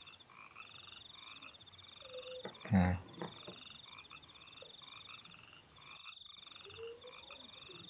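Frogs calling in the background, a steady chorus of repeated pulsed croaks. There is a short voice sound about three seconds in, and the background cuts out briefly about six seconds in.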